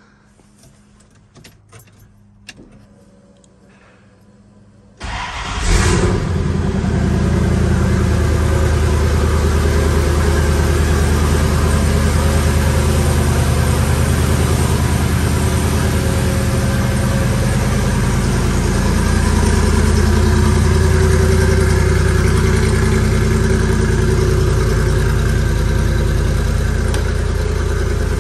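Cold start of a 392 Hemi V8 (6.4-litre Gen III crate engine) breathing through custom headers and a 3-inch exhaust. A few light clicks come first. About five seconds in the engine cranks and fires with a brief burst, then settles into a steady idle.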